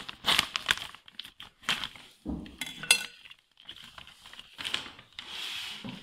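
Clear plastic sheeting crinkling and rustling in quick irregular bursts as it is cut with scissors and pulled apart by gloved hands, with a short metallic ring about three seconds in.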